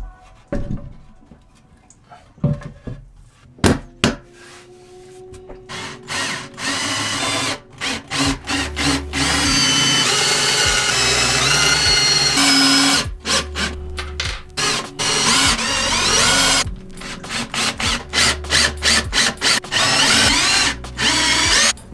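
Ryobi cordless drill running in bursts as it bores into a wooden mounting board: one longer run about ten seconds in, then many short stop-start bursts, with background music underneath.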